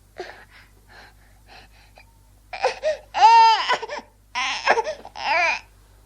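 Baby giving a few short breathy gasps, then about halfway through four loud, high-pitched vocal squeals, each rising and falling in pitch.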